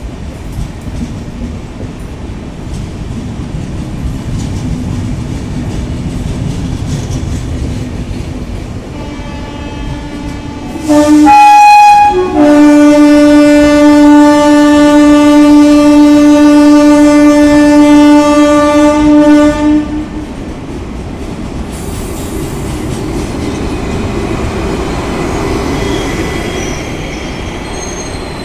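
WAP-7 electric locomotive sounding its horn: a short blast, then one long steady blast of about seven seconds. Under and around it runs the rumble and wheel clatter of the train on the track.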